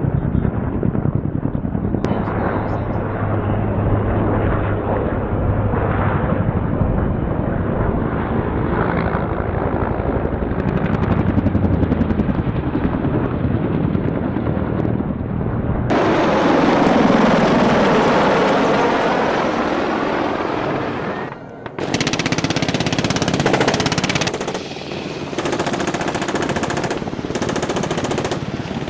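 Sustained rapid automatic gunfire, dense and continuous. About 16 s in it changes to a brighter, sharper sound and briefly drops out just after 21 s before resuming.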